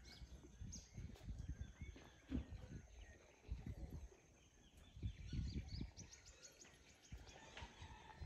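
Faint, scattered bird chirps over irregular low rumbling thumps.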